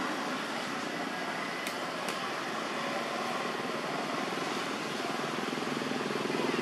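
Steady rushing background noise, like distant engine or traffic rumble, growing slightly louder near the end, with two faint clicks about two seconds in.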